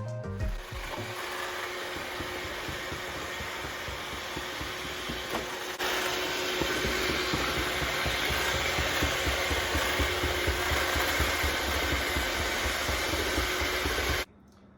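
iRobot Roomba robot vacuum running, a steady rough mechanical whirring with a faint whine. It gets louder about six seconds in and cuts off suddenly near the end.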